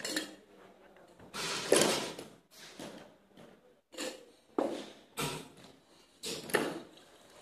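Stainless-steel cocktail shaker tins and bottles being handled: a string of sharp metal knocks and clatters, each fading quickly, the loudest and longest about two seconds in.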